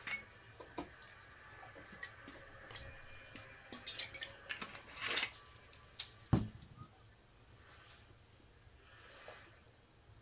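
Watercolour brush working wet paint on paper: small wet squishes and scattered light taps. A brief swish comes about five seconds in and a dull knock about a second later.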